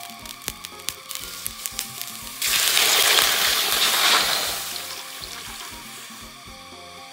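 Water poured into a hot, dry aluminium wok holding eggs sizzles loudly as it hits the hot metal. The hiss starts suddenly about two and a half seconds in and dies away over the next few seconds. Sharp crackles come before it.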